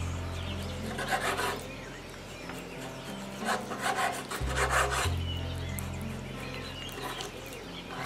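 Chef's knife slicing raw chicken breast into strips on a wooden cutting board: several drawn cuts, the blade rasping through the meat onto the wood. Soft background music plays underneath.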